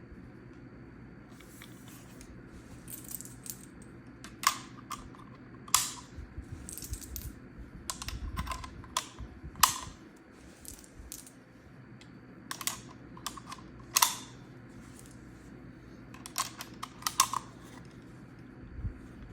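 Sharp clicks and knocks of the freshly cleaned and reassembled SKS rifle being handled, coming irregularly about a dozen times over a faint steady hum.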